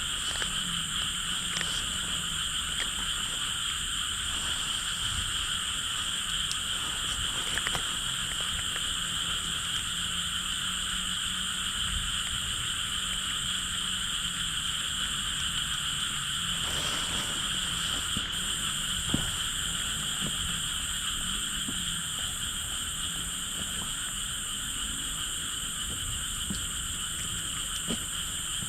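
Dense chorus of frogs calling steadily at night, with a few faint clicks.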